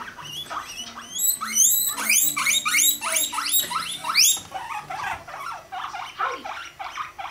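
Guinea pigs squealing while mating: a rapid series of high, rising squeaks, loudest in the first half. They then go on as shorter, softer squeaks several times a second.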